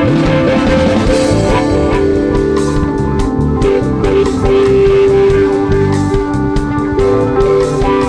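Rock music with guitars over a drum kit, the guitars holding long notes.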